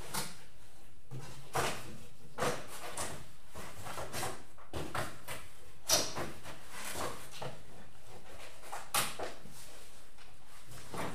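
Steady room noise with a handful of brief knocks and clatters from unseen handling, the sharpest about six seconds in and another about nine seconds in.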